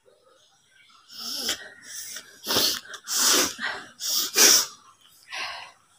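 A woman forcefully blowing and snorting air out through her nose to clear mucus: a run of about seven short, hissing nasal blasts starting about a second in.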